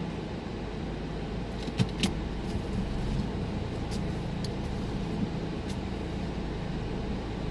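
Car running, heard from inside the cabin as a steady low rumble, with a couple of sharp clicks about two seconds in.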